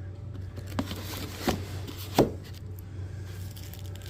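Three short knocks or clicks from handling a 6.5-inch midrange speaker driver, the last the loudest, over a steady low hum.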